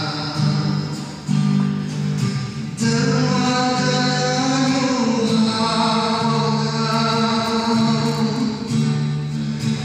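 A man singing a slow song with long held notes into a microphone, amplified through the hall's PA, with guitar accompaniment.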